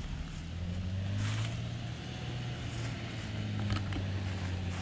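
Pickup truck engine running at low speed as the truck creeps up a dirt trail, a steady low drone that grows a little louder about a second in, with a few short rustling hisses.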